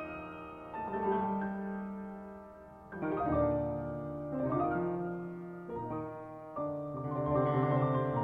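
Two grand pianos playing together in classical concert music. Chords are struck every second or two and left to ring and fade before the next.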